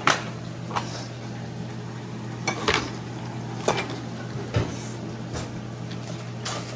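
A handful of short knocks and clinks of utensils and dishes on a kitchen counter, with plastic wrap being pulled from its box and handled, over a steady low hum.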